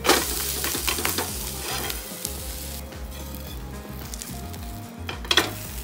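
Oats uttapam being flipped onto its vegetable-topped side on a hot, oiled non-stick tawa: a burst of loud sizzling as the topping hits the pan, dying down after about three seconds, with a few metal spatula scrapes. Near the end the spatula knocks sharply against the pan.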